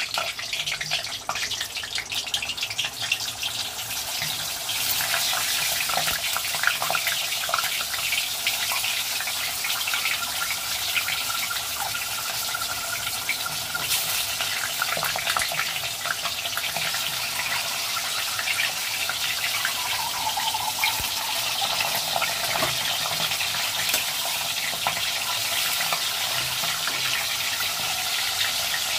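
Whole tomatoes frying in hot oil in an aluminium kadai: a steady sizzle with fine crackling throughout.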